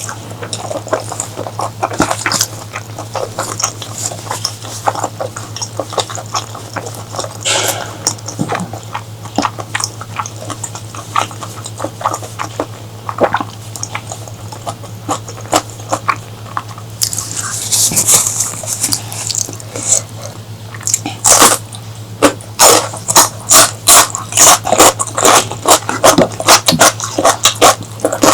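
Close-miked eating: wet chewing and lip-smacking clicks, turning about three quarters of the way in into loud, regular crunching bites about two a second. A steady low hum runs underneath.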